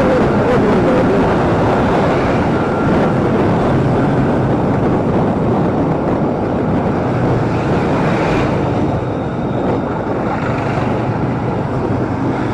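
Motorcycle riding along at speed: a steady engine drone mixed with rushing wind and road noise.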